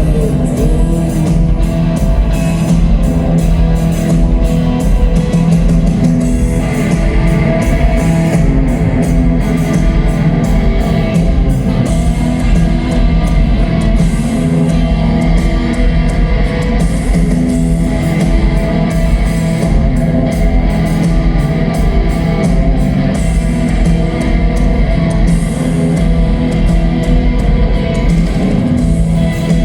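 Live rock band playing an instrumental passage: guitars over a steady bass line and a regular drum beat, loud and continuous.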